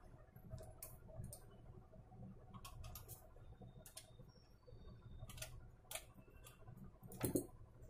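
Faint, irregular clicks and small taps as a tool prises at the steel locking clips on an LCD monitor's metal panel frame. The loudest clicks come near the end.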